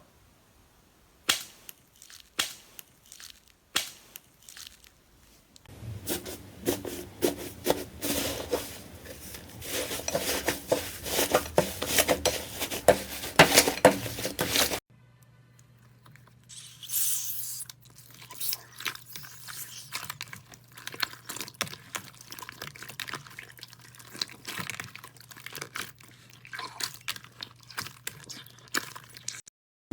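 Slime being pressed, poked and stretched by hand: sticky clicks and pops, with a dense stretch of crackling in the middle, across several short clips.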